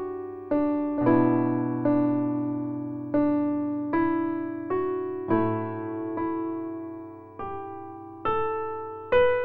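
Background music: a slow piano piece, with single notes and chords struck a little more than once a second, each ringing and fading away.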